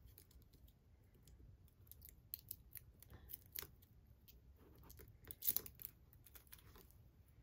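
Faint, scattered small clicks and crinkles of hands working a purse's metal zipper pull and peeling a small clear plastic protective film off the hardware. The loudest click comes about five and a half seconds in.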